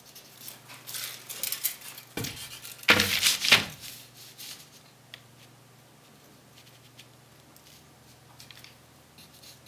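Handling noises: a few rustles and knocks as a tape measure is put away and a wooden strip is laid against the paper on the drawing wall, loudest about three seconds in. After that only a faint steady hum remains.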